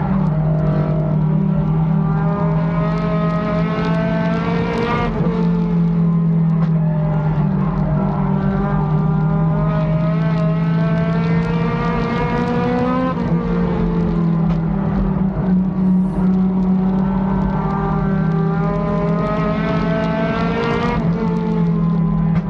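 Race car's engine heard from inside the cockpit under load. The revs climb steadily for several seconds and then fall off sharply, three times over, as the car accelerates down each straight and lifts for the turns. A steady low drone runs underneath.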